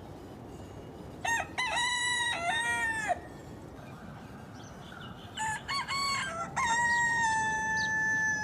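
Rooster crowing twice: a first crow of about two seconds, then a second that opens with a few short notes and ends in a long, level held note.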